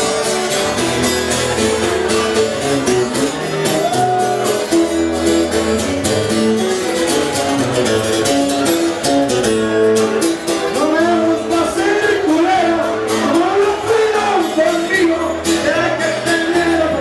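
Live acoustic guitar strummed in a steady rhythm, with a man singing into a microphone from about halfway through.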